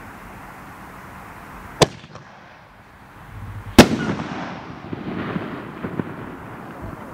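Consumer aerial firework: a sharp launch thump, then about two seconds later a louder bang as the shell breaks, followed by a couple of seconds of scattered smaller pops and crackle dying away.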